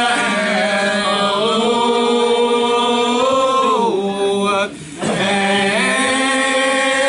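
Gospel singing in long, drawn-out held notes that slowly bend in pitch, with a brief break for breath about halfway through.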